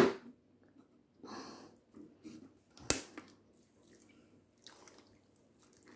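Water poured from a glass into a plastic blender jar of chopped vegetables, a short splash about a second and a half in. Two sharp knocks, at the start and about three seconds in, are the loudest sounds.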